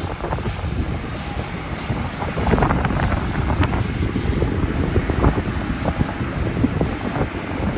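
Strong gusty wind buffeting the microphone, crackling and thumping over the low rumble of an Airbus A320 jet airliner.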